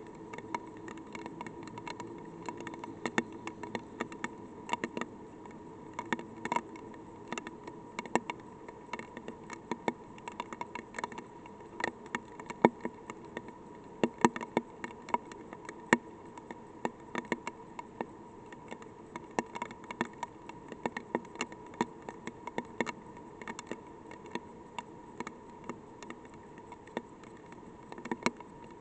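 Light rain: scattered raindrops ticking irregularly on the probe's microphone and housing, over a faint steady electronic hum.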